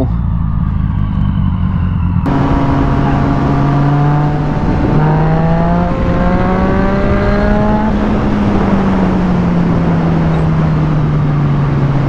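Yamaha FZ-09's three-cylinder engine pulling the bike along at road speed, its pitch rising between about four and eight seconds in and then holding steady. Heavy wind rush on the microphone comes in sharply about two seconds in.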